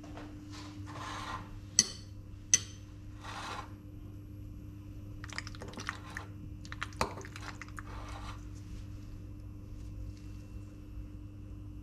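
A metal fork clinks sharply twice against a ceramic bowl, then stirs and scrapes through creamy penne pasta in the bowl in short strokes.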